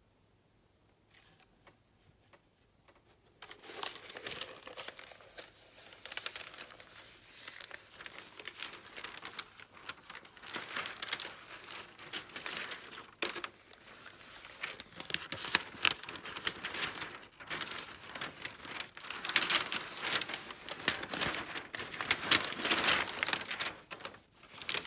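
Rolled paper being unrolled and handled after coming out of a cardboard mailing tube, crinkling and crackling continuously with many sharp crackles. A few light taps come first, and the crinkling starts about three and a half seconds in.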